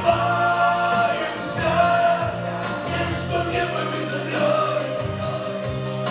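A man singing a Russian song into a microphone over a karaoke backing track, both amplified through a PA speaker.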